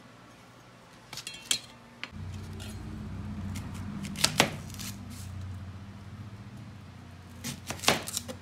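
Chef's knife cutting a red onion on a plastic cutting board: a few sharp knocks as the blade meets the board, in pairs about four seconds in and again near the end, after lighter clicks of the knife scraping the board. A steady low hum comes in about two seconds in.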